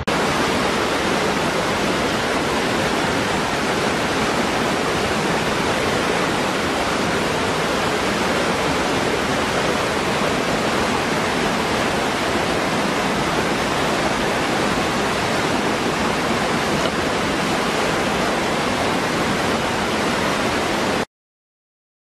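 Small waterfall pouring into a rocky pool: a steady, loud rush of falling water. It cuts off abruptly about a second before the end.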